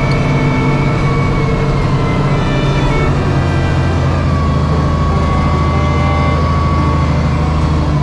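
John Deere wheel loader's diesel engine working hard under load as the bucket pushes snow. A steady whine rises over the engine noise for a few seconds in the middle.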